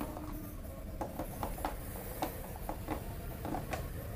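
Light, scattered clicks and taps of hands handling small drill accessory bits in the moulded slots of a hard black plastic carrying case, over a low steady hum.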